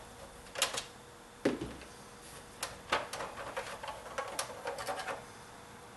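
Irregular clicks and light plastic knocks from a screwdriver and fingers working in the plastic mechanism of an opened Sony five-disc CD changer. There is one firmer knock about a second and a half in, and a busier run of small clicks in the second half.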